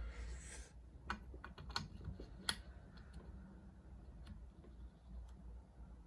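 Small steel parts of a watchmaker's pivot lathe clicking and tapping as a Steiner notch-and-lantern rod is handled and fitted into a Bergeon Rollifit: a cluster of sharp clicks in the first two and a half seconds, the loudest about two and a half seconds in, then a few fainter ones.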